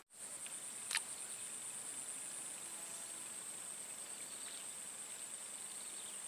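Steady, high-pitched buzzing chorus of insects, with one sharp click about a second in.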